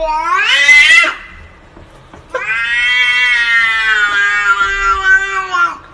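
Domestic cat yowling. A call rises in pitch and breaks off about a second in, then after a short pause comes one long, drawn-out yowl of about three and a half seconds that ends abruptly.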